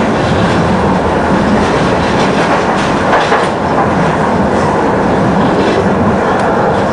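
Tram running along its track, heard from inside the car: a steady noise of wheels on the rails, with a few faint clicks a few seconds in.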